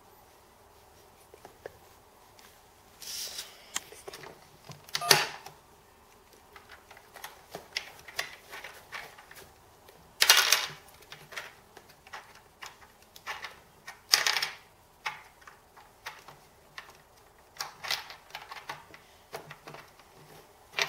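Plastic clicks and clatter from a plastic toy stamp case: its clear lid is lifted and the small plastic stamps are pulled one by one out of their slots. The clicks come irregularly, with a few sharper clacks, the loudest about five and ten seconds in.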